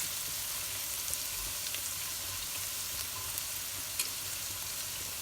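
Onion, ginger-garlic paste and green onion sizzling steadily as they fry together in a pan, with a few faint light clicks.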